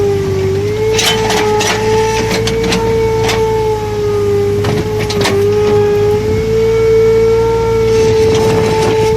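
Komatsu excavator running, with a steady high whine that wavers slightly in pitch over a low engine hum. Several sharp knocks or clanks are scattered through it.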